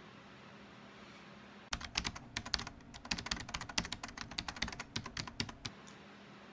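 A quick run of sharp, irregular clicks and taps lasting about four seconds, starting a couple of seconds in, over a faint steady hum.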